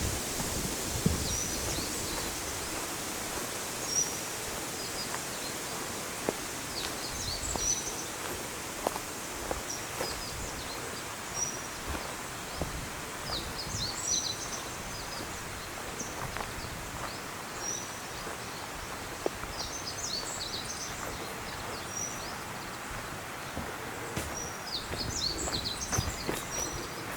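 Small songbirds calling in short high chirps every few seconds, with a few busier bursts of twittering, over a steady outdoor hush.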